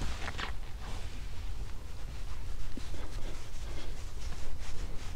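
Foam applicator pad rubbing polish onto the camper's overcab to scrub off ingrained black streaks, with a few rubbing strokes about half a second in, over a low steady rumble.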